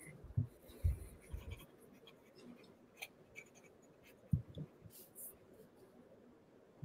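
Faint scratching of a pen or coloured marker writing on paper, with a few soft knocks, most of them in the first second and a half.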